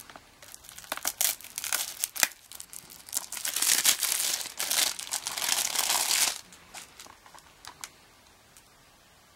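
Plastic shrink wrap being cut and peeled off a Blu-ray case: a few sharp crackles, then about three seconds of loud crinkling and tearing, going quiet after about six seconds.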